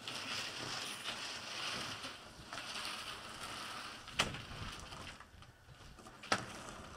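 Large corrugated plastic insulation-blower hose rustling and scraping as it is carried and laid out, with two sharp knocks about four and six seconds in.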